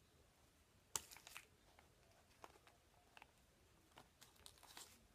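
Faint crinkling and clicking as a small clear plastic package holding a stamp block is handled, with one sharp click about a second in and a run of crinkles near the end.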